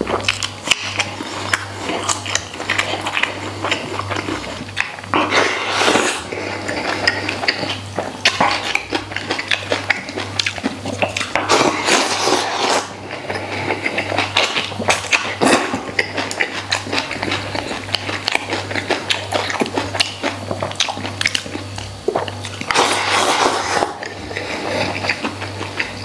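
Close-miked chewing of braised pork ribs and rice: wet chewing, smacking and biting sounds throughout, with three louder noisy surges about six, twelve and twenty-three seconds in.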